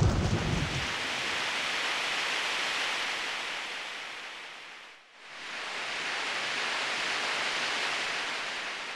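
Ocean surf washing up on a beach in slow swells, each rising and falling away over about five seconds. The tail of a thunder rumble dies out in the first second.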